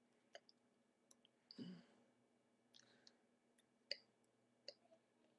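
Faint, scattered clicks and taps, about half a dozen, from a person signing in sign language, with a softer breath-like sound about a second and a half in.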